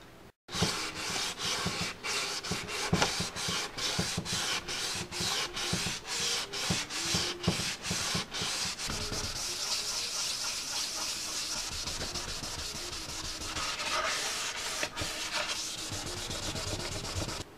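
Wet sanding of a primed motorcycle fairing by hand with 600-grit paper: quick back-and-forth rubbing strokes, about two to three a second, that give way after about nine seconds to a steadier continuous rubbing, which cuts off suddenly at the end.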